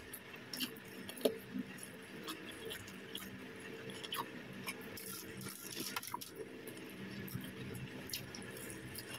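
Faint chewing of crispy fried chicken: scattered small crunches, clicks and mouth sounds.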